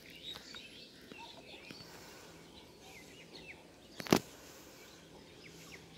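Small birds chirping here and there over faint outdoor background noise, with one sharp knock about four seconds in, the loudest sound.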